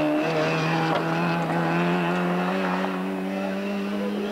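Zastava Yugo rally car's engine held at high revs, its pitch rising slowly as the car accelerates away out of a corner.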